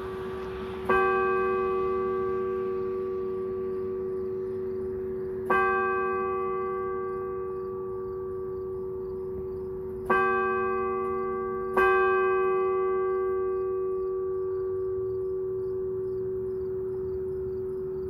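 An 1876 church bell struck by its clock hammer to toll the hour: four strokes, the first three about four and a half seconds apart and the last coming quickly after the third. Each stroke rings on in a long, slowly fading hum.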